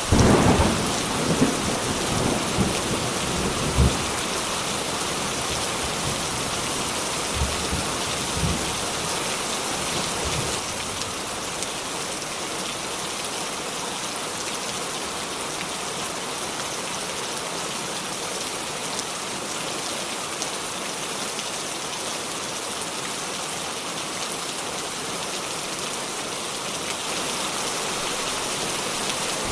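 Thunderstorm: steady heavy rain hissing, with a thunderclap at the very start that rumbles on for about four seconds. A few fainter thunder rumbles follow around eight to ten seconds in, then the rain goes on alone.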